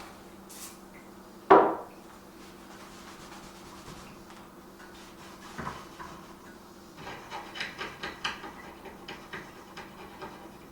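Knocks and light clattering of hard objects being handled and set down: one loud, sharp knock about one and a half seconds in, a softer one about halfway through, then a run of quick light clicks and rattles.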